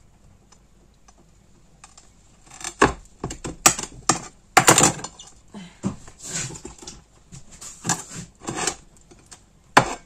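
Clatter of cutting brynza cheese: a large knife knocking against a plate and blocks of cheese being picked up and set down. Quiet for the first two seconds or so, then a string of sharp, irregular knocks.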